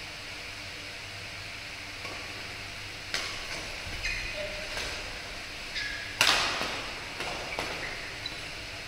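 Badminton rackets striking a shuttlecock in a rally: a run of sharp hits starting about three seconds in, the loudest about six seconds in, with short squeaks of shoes on the court between them. A steady hiss sits underneath.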